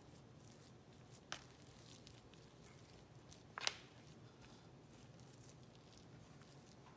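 Quiet room with two short clicks a little over two seconds apart, the second louder: a utensil knocking against the container while potato salad is pressed down into it.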